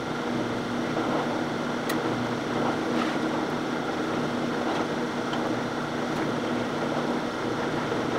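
Drill press motor running steadily while a small bit drills holes through plywood, with a few faint ticks.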